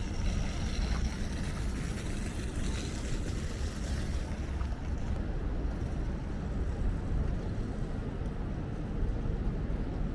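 Steady low outdoor rumble of a city plaza: distant traffic and wind on the microphone, with no distinct events.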